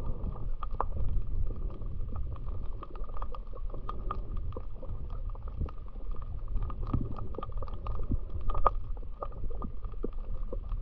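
Underwater ambience picked up by a camera submerged in the sea: a low, muffled rumble dotted with many small clicks and crackles.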